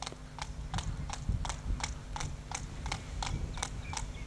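Hoofbeats of a thoroughbred horse with stringhalt walking on tarmac: a steady clip-clop of sharp hoof strikes, about three a second, over a low background hum.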